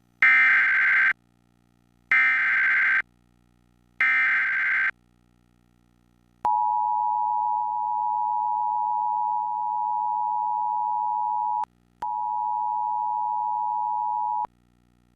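Emergency Alert System tones: three short bursts of screechy SAME digital header data, each just under a second, then the steady two-tone EAS attention signal held for about eight seconds, cutting out for an instant about two-thirds through. Together they open a flood warning alert.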